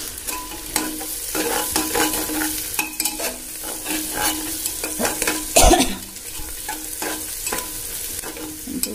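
Sliced onions sizzling in hot oil in an aluminium pressure cooker as a steel spoon stirs and scrapes against the pot, with one louder clank a little past halfway; the onions are browning.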